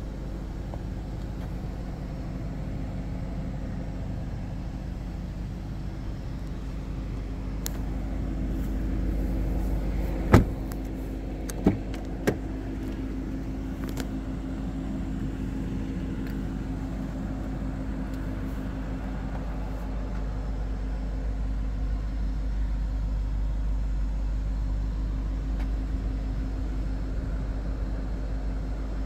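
Car engine idling with a steady low hum. There are three sharp clicks, the loudest about ten seconds in and two lighter ones within the next two seconds.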